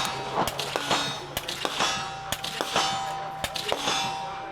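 Repeated gunshots on a shooting range, about two or three a second, with steel targets clanging and a sustained metallic ring.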